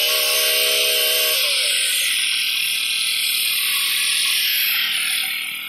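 Brush cutter with a tiller attachment running at high revs as its tines dig into soil; about a second and a half in, the engine's pitch falls as it slows, and the sound drops off near the end.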